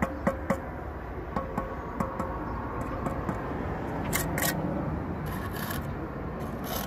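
A steel brick trowel scraping against brick and mortar, a few short rasping strokes about four seconds in and again in the last two seconds, as squeezed-out mortar is trimmed from the joints.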